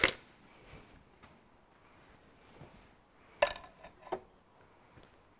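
A steel spanner clinking against a head stud and nut on a tractor engine block: a sharp click at the start, then two metallic clinks with a short ring about three and a half and four seconds in.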